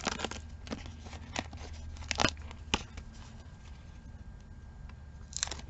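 Paper rustling and a few small crackles and ticks as a thin die-cut paper word is popped out of its sheet and handled, with a short rustle near the end.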